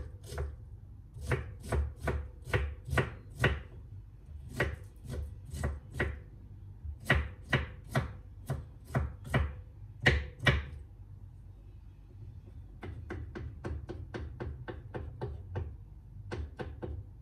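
Kitchen knife chopping cucumber sticks into small dice on a wooden cutting board, the blade knocking the board about two or three times a second. About ten seconds in the chopping stops for two seconds, then resumes as quicker, lighter chops.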